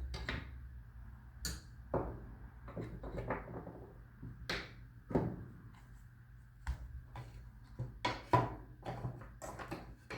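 Scattered light clicks and knocks of small parts and tools being handled while reassembling a motorcycle instrument cluster, over a low steady hum.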